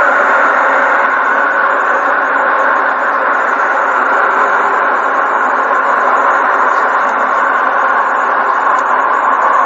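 A 'planet sound': a spacecraft space recording converted into audio, playing as a steady, dense rushing hiss with a held hum running through the middle of it.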